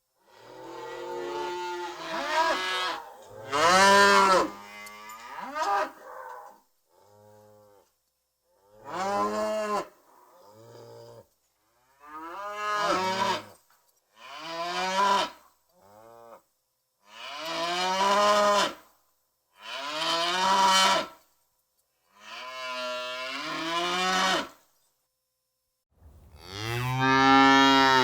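Cows mooing: a string of about a dozen separate moos, some short and some drawn out, many swelling up and falling away in pitch, with brief dead-silent gaps between them.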